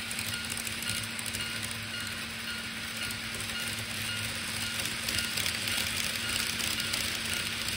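Model trains running on the layout track: a steady whirr of the motors and the wheels on the rails over a constant low hum, growing a little louder about five seconds in as a train passes close by.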